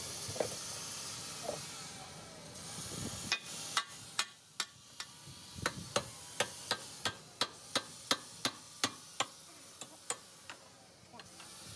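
Hammer tapping on a metal tool against a dozer radiator: a run of sharp metallic taps, about three a second, starting about a third of the way in and stopping near the end, over a steady hiss.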